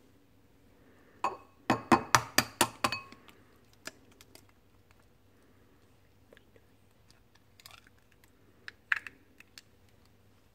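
Sharp tapping clicks: one a little over a second in, then a quick run of about eight, then scattered faint clicks and one more sharp one near the end.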